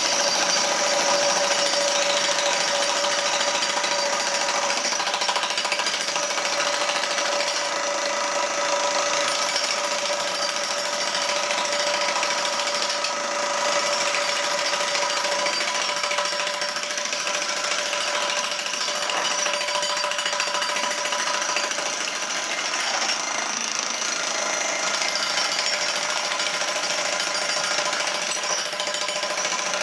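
Two electric demolition hammers, a 15 kg Hilti TE 1500 and a 30 kg DeWalt breaker, running at once with their chisel points driven into concrete blocks: continuous, steady hammering as the concrete cracks and breaks away.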